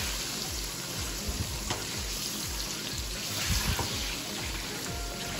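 Saba banana slices deep-frying in hot oil in a wok, a steady sizzle, with a few sharp clinks of a wire skimmer against the pan as they are stirred. Background music plays underneath.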